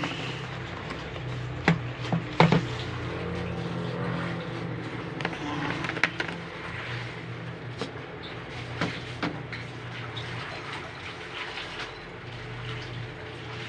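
A metal ladle clinks and knocks against a steel cooking pot, several sharp strikes spread irregularly, over a steady low hum and hiss.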